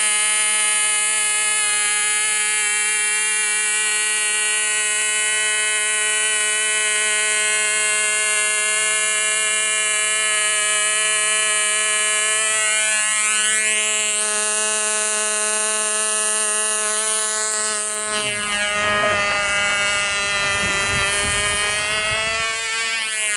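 Fuel-burning model airplane engine running at full speed in a loud, steady, high-pitched whine. From about three-quarters of the way in, its pitch wavers up and down as the tethered control-line plane circles.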